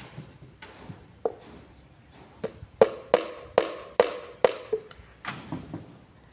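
Hand hammer blows: a few light taps, then a run of about six sharp strikes a little over two a second, each with a short ringing tone, then lighter taps near the end.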